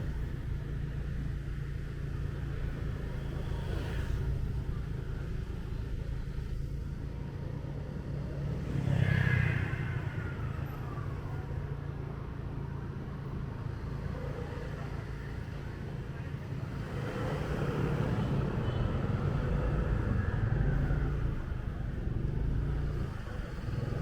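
Motorbike engine running steadily at low speed, with other traffic passing close by. A louder vehicle goes past about nine seconds in, and another stretch of passing traffic swells in the last third.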